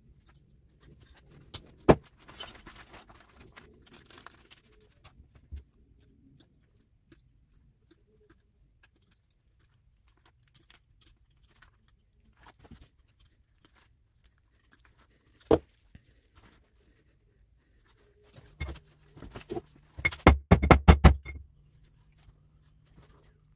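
Hand tools and metal motor parts clinking, scraping and knocking on a wooden workbench while a motor is taken apart, with a few sharp single knocks and a quick run of hard knocks near the end.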